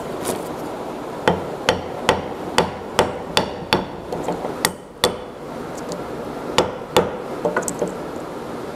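Hammer blows on a metal punch, driving a wooden wedge into the end of a chair spindle's tenon to lock it tight in the seat. About a dozen sharp taps, mostly half a second or so apart, with a short pause around the middle and lighter taps near the end.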